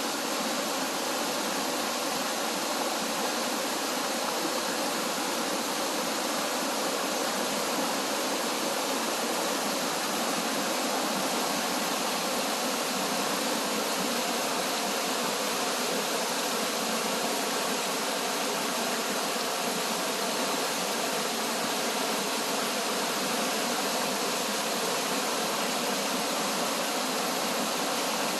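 Mountain valley stream rushing steadily over rocks, full and fast after the monsoon rains: an even, unbroken rush of water.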